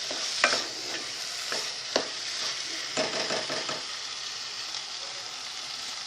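Tomato-and-onion biryani masala sizzling in a pan while it is stirred, with a steady frying hiss. A few sharp knocks of the utensil against the pan come in the first three seconds.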